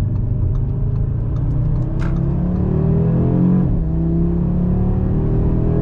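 Audi RS3's turbocharged five-cylinder engine on its stock exhaust, heard from inside the cabin, accelerating hard under part throttle. The pitch climbs, drops sharply with a quick upshift about three and a half seconds in, then climbs again.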